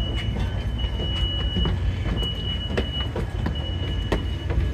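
Inside a UTA FrontRunner commuter train standing at a station: a steady low rumble from the idling train, with a faint high steady tone that comes and goes and a few light knocks.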